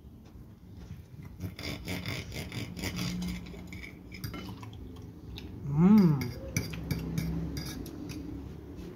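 Cutlery clinking and scraping on a plate during a meal, in a run of quick small clicks. About six seconds in comes a brief hum from the eater that rises and falls in pitch.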